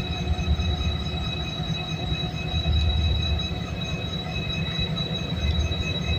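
Korean-built GMU-30 diesel locomotive idling: a steady low engine rumble with steady high-pitched whines over it.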